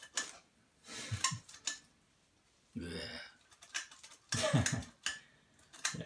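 Clicks, knocks and light clatter of hard objects being handled, with a short low hum-like sound about halfway through.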